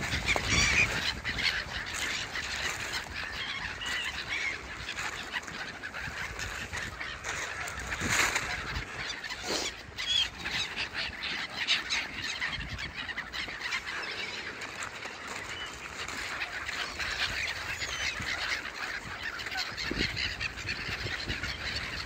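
A flock of Canada geese honking and calling, many short calls overlapping.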